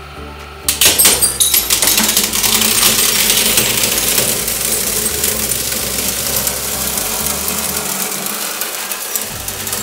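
A stack of white ceramic plates cracking and shattering under a hydraulic press. A sudden burst of sharp cracks comes about a second in, then continuous crackling and clinking of shards as the stack is crushed down.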